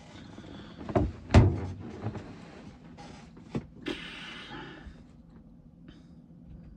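Handling noise from a single-shot 12 gauge shotgun: two sharp knocks a little after a second in, then a couple of clicks and a short rustle.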